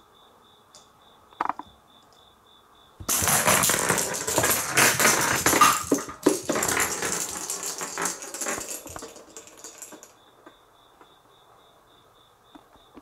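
Nyancoroby electric rolling-ball cat toy rattling and clattering as it runs and knocks about on a wooden floor, starting suddenly about three seconds in, loud for several seconds, then fading out.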